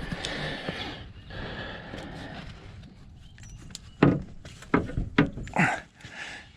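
Four or five sharp metallic knocks in quick succession, starting about four seconds in: a hammer tapping on the 2004 Silverado's front axle to drive it out of the hub.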